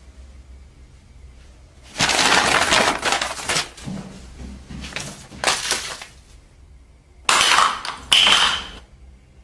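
Several loud crashes and clatters: a long one about two seconds in, two shorter ones around five seconds, and two more near the end, the last with a brief high ring.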